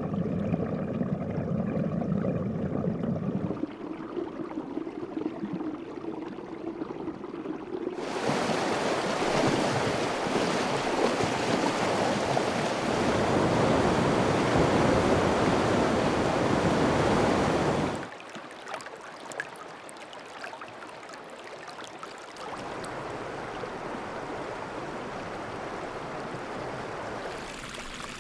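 A series of separate running-water recordings of brooks, streams and rapids, each cut abruptly into the next, about five changes in all. The loudest and fullest rush of water runs from about 8 to 18 seconds in; a quieter, thinner flow follows.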